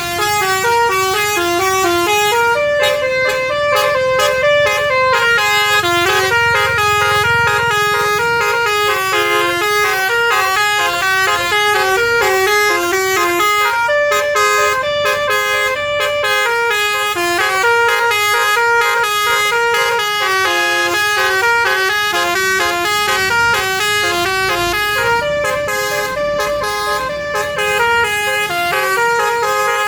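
Bus basuri musical horn playing a tune, a long unbroken melody of stepping notes, with a low engine rumble beneath.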